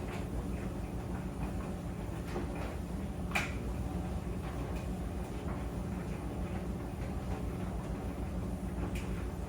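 Tumble dryer running: a steady low rumble and hum from the turning drum, with scattered light clicks and knocks and one sharper knock about three and a half seconds in.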